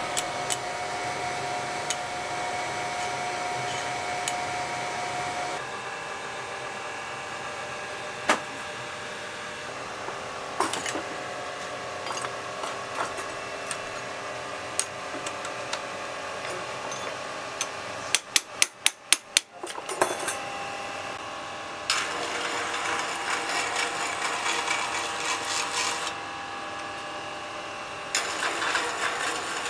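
Blacksmith's workshop sounds: a steady machine hum under scattered clinks of metal tools being handled. A little over halfway through comes a quick run of about six sharp hammer strikes on steel. Later come stretches of harsh rasping as a kanna (Japanese plane) blade is shaved with a two-handled scraper.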